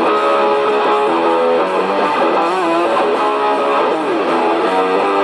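Electric guitar played through a small Roland Cube amplifier: a lead melody of single notes, with string bends and vibrato in the middle and a sliding note near the end.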